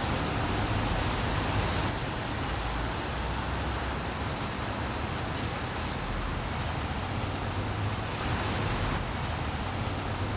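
Steady rain falling, a continuous even hiss with a low rumble underneath.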